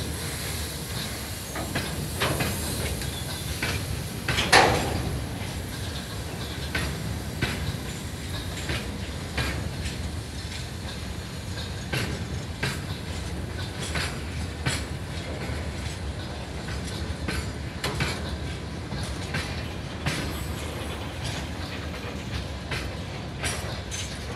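Freight train of open gondola wagons rolling past as it pulls out. Its wheels knock irregularly over rail joints above a steady low rumble, with one louder metallic clank about four and a half seconds in.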